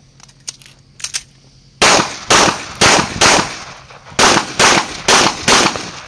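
Pistol shots in rapid pairs: eight shots fired as four double-taps, each pair about half a second apart, beginning about two seconds in after a few faint clicks.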